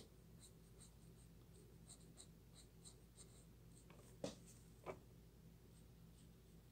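Faint scratching of a marker nib on paper in short colouring strokes, with two soft clicks a little over four seconds in.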